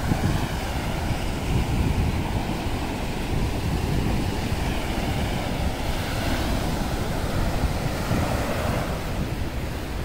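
Sea surf breaking and washing up the sand in a steady rush, with wind buffeting the microphone in low, uneven rumbles.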